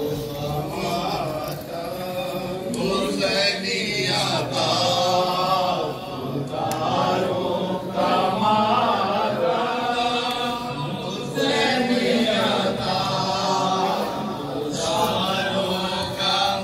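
Men's voices chanting a noha, a Shia mourning lament, together in chorus.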